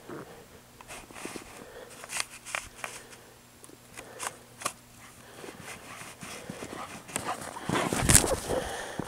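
Scattered crunching steps in fresh snow, then a part St. Bernard, Akita and husky dog panting close by near the end as it rushes up and pushes its face into the snow.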